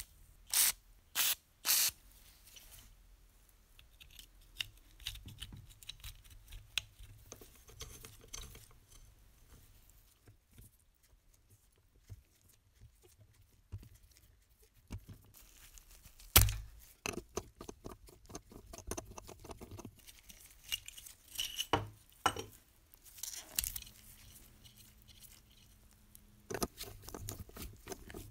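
Hand-handling noise from the metal chassis and black counterweight block of a Märklin R-910 toy locomotive as the parts are fitted together. There are four quick strokes at the start, scattered clicks and scrapes, and one sharp knock a little past halfway.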